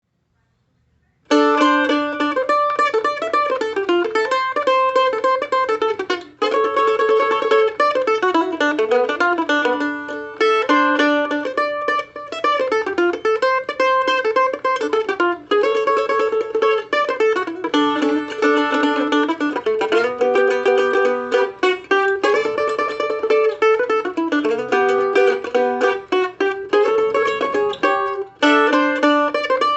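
Hughes mandolin No. 10 played solo: a fast tune of quick, rapidly picked notes that starts about a second in and runs on without pause.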